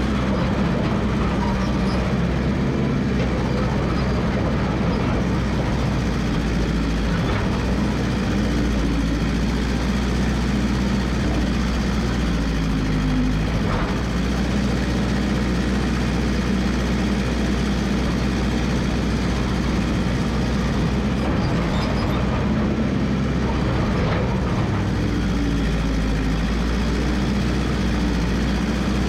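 Massey Ferguson 300 crawler dozer's engine running steadily, its pitch dipping briefly about halfway through.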